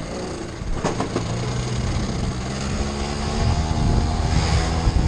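1985 Honda Spree's 50cc two-stroke engine running while still warming up, with a short knock about a second in; it gets louder in the second half as the scooter pulls away.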